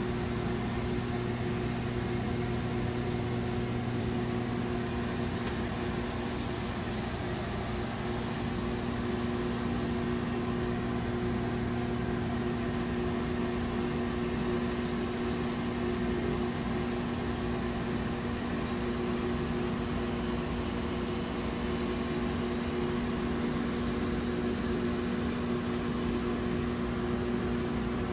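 Steady hum of running equipment: a low, even electric drone under a faint hiss, unchanging throughout.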